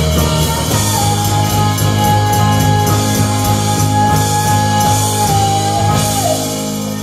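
Live rock band with women singing, amplified through PA speakers, playing the closing bars of a song. One long high note is held over the band for about five seconds, then the music starts to wind down near the end.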